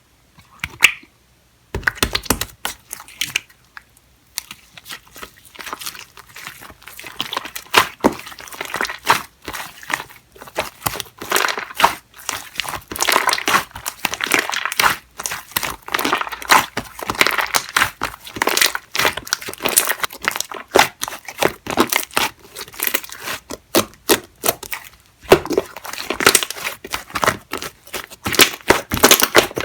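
Slime mixed with shaving foam being squeezed and stretched by hand, making dense, wet crackling and popping as trapped air bubbles burst. It starts about two seconds in and goes on almost without a break.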